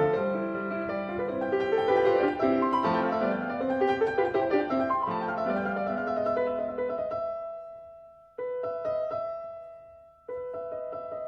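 Background piano music. It fades away about seven seconds in, then cuts back in abruptly twice.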